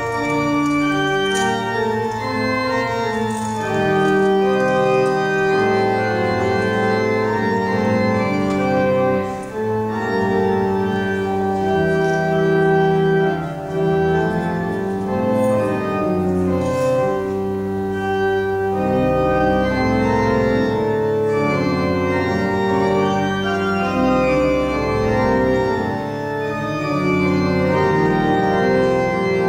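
Church organ playing slow, sustained chords that change every second or two, with a deep pedal bass in the middle and short breaths between phrases.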